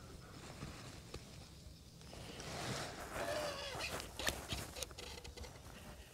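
Quiet handling of a baitcasting reel, with a few sharp clicks about four to five seconds in, and a short wavering call in the middle.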